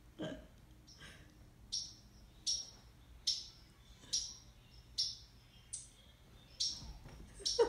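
Bird chirps repeated regularly, about one every 0.8 seconds, each a short high note sweeping downward. A brief lower-pitched sound comes at the start and a louder one just before the end.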